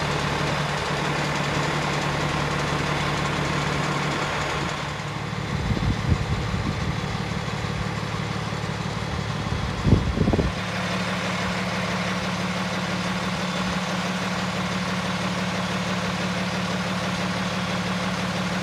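Cummins ISC inline-six diesel of a Freightliner M2 dump truck idling steadily. A few low thumps and rumbles come over it between about five and ten and a half seconds in.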